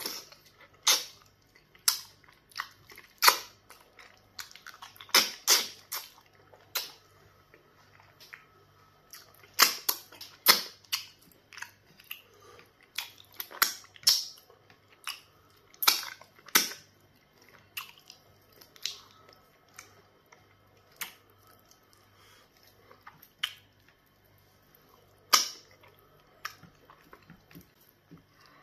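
Close-up wet eating sounds of pounded yam fufu with black soup, eaten by hand: sticky lip smacks and squelches come irregularly, in loose clusters, some of them sharp and loud.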